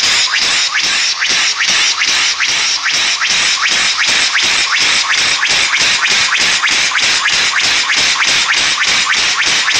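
Homemade steam engine running on compressed air, a loud steady hiss broken by rhythmic exhaust chuffs about four a second, quickening slightly.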